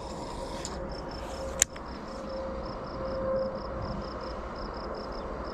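An insect chirping in a steady rhythm, about four short high chirps a second, over faint outdoor background noise, with one sharp click about a second and a half in.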